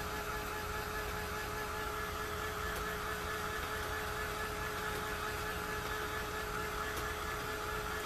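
A steady machine hum with several held tones, as from a small motor or fan running, with a few faint taps spread through it.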